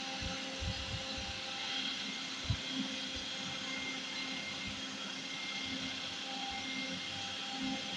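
A steady mechanical whir with faint hum tones running underneath, and a few soft low thumps in the first few seconds.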